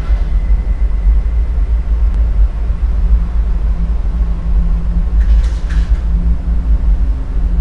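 Steady deep rumble, a low drone that holds at one level, with a faint hum above it.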